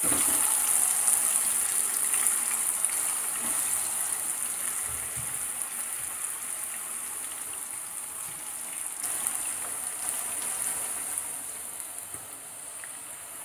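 Marinated chicken pieces deep-frying in hot coconut oil: a continuous hiss of sizzling, bubbling oil with faint crackles, just after the pieces go in. It gradually quietens as the oil settles over a low flame.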